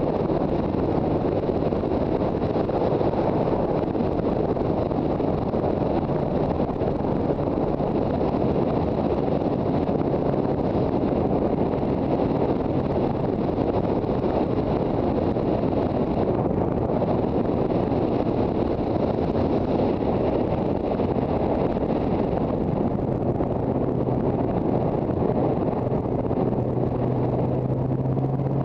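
Riding a Yamaha TZR250 two-stroke twin motorcycle: wind rushing over the microphone with a steady engine note underneath, the engine note growing stronger and changing pitch near the end.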